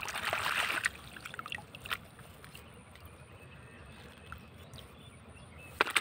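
Shallow muddy water splashing and sloshing as a silicone pop-it toy is swished through it by hand. The splashing is loudest in the first second, followed by a few small drips and clicks, quieter trickling, and another splash just before the end.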